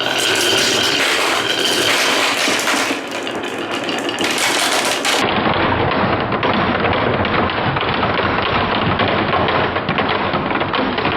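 Many balls rolling and clattering down wooden marble-run tracks and slopes, a dense, continuous rattle of small knocks. It turns duller about five seconds in.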